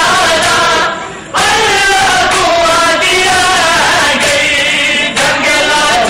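Men chanting a noha (Shia mourning lament) loudly together, several voices in one sung line. The chanting drops away briefly about a second in.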